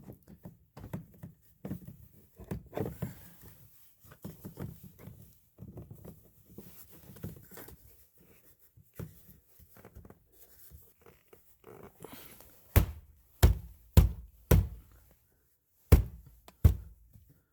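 Soft handling and rubbing of plastic parts, then six sharp knocks close together near the end, as a replacement inside door handle for a 2009 Chevy Cobalt is snapped and pressed into place in the door trim.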